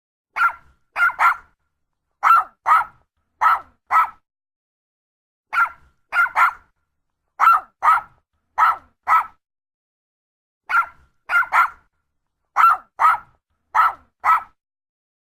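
Yorkshire terrier barking: short, high-pitched barks in a set of about seven (a double, then pairs) that repeats identically three times, with silence between the barks.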